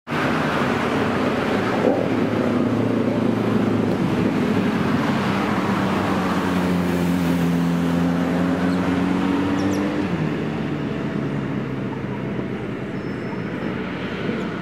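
Road traffic noise with a vehicle engine running, its pitch sliding slowly, before the sound eases off over the last few seconds.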